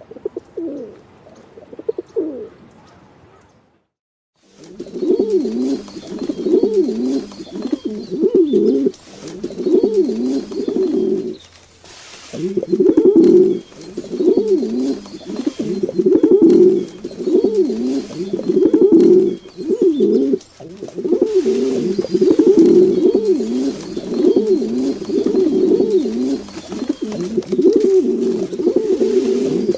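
Pigeons cooing: a couple of coos, a short break of silence about four seconds in, then near-continuous repeated low cooing.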